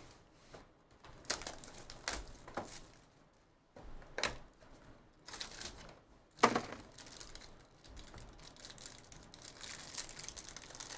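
Trading-card boxes and cards handled on a table: a few sharp knocks and scrapes, the loudest about six and a half seconds in. Near the end comes steady crinkling of a plastic pack wrapper being torn open.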